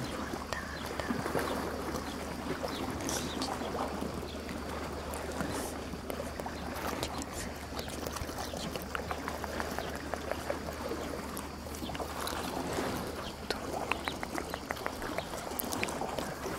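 Sea water lapping and sloshing at the shore, a steady wash of small waves, with scattered small clicks and taps that grow more frequent in the second half.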